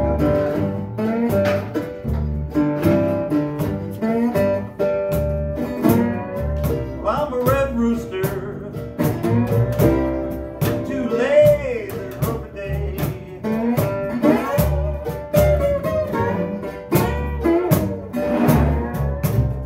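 Small acoustic blues band playing live: acoustic guitars and a plucked upright bass over a steady beat from a cajon.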